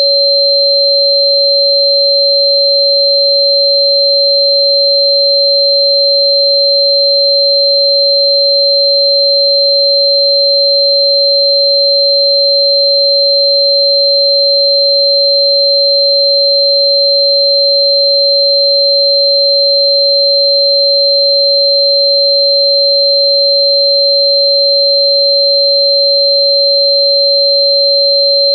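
Two steady electronic sine tones held without any change: a tone near 560 Hz, matching the 559.041 Hz frequency assigned to Sichuan fritillary bulb (Chuan Bei Mu), together with a higher whistle-like tone around 4 kHz.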